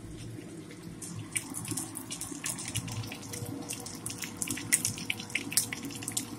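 Canola oil sizzling around a cabbage, carrot and zucchini fritter shallow-frying in a nonstick pan: a steady hiss with many quick crackles and pops.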